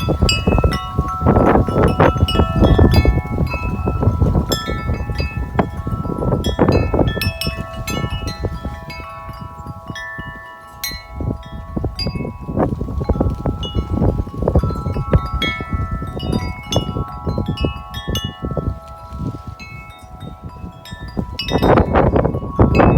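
Corinthian Bells 36-inch wind chime blown hard by strong wind, its tubes struck again and again and ringing on in long overlapping tones. Wind rumbles on the microphone, strongest in gusts at the start and near the end, with a calmer spell around the middle.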